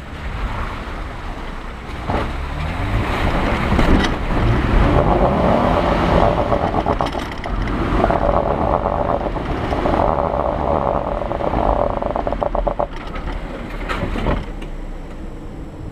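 A 4x4's engine revving while it crawls over a rutted, muddy trail. The pitch rises about two seconds in, the engine then works steadily under load, and the sound eases off near the end.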